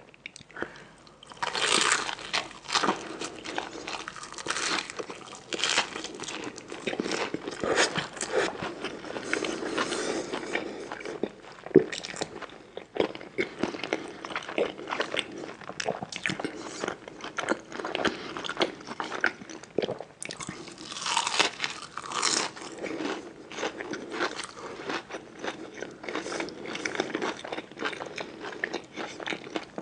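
Close-miked eating: a person taking crisp bites and chewing with a crunch, many irregular crunches in quick succession with short pauses between bites.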